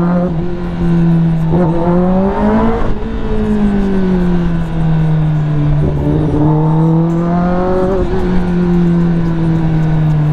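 Kawasaki ZX-10R inline-four with an SC Project exhaust, revving up through a quick gear change about a second and a half in, then falling away as the throttle closes. It revs up and falls away a second time.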